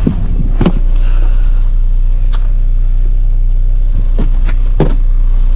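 Engine running with a steady low hum. Four short knocks sound over it, about half a second in, just past two seconds, and twice near the end.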